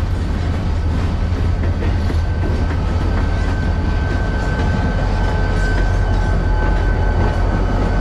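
Freight train rolling past at close range, a steady low rumble of cars on the rails giving way to a diesel locomotive's engine, which grows slightly louder as the locomotive comes alongside. A thin, steady high whine joins about three seconds in.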